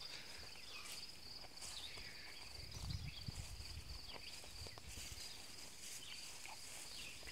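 Insects trilling steadily on one high pitch in summer grass, with footsteps swishing through tall weeds, loudest about three seconds in.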